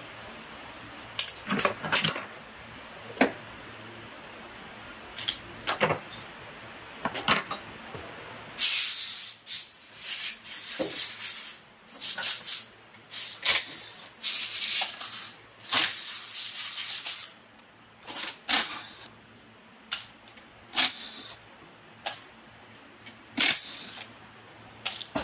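Sharp metallic clicks and clinks, then a run of short hissing spray bursts, roughly a second each, through the middle of the stretch, followed by more scattered clicks.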